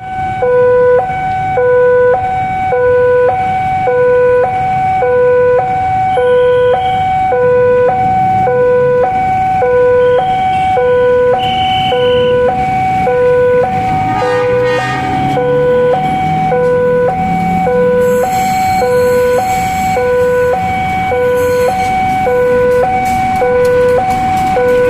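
Electronic two-tone level-crossing warning alarm sounding steadily, alternating a low and a higher tone about once a second, which signals that a train is approaching. Road vehicles hum underneath, and one passes about halfway through.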